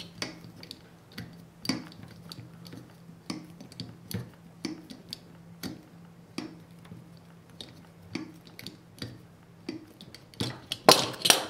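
Hand-pumped hydraulic crimping tool being worked to crimp a 75 A Powerpole contact onto a wire, with a sharp metallic click about every second as the handle is pumped under heavy force. A louder clatter of clacks comes near the end.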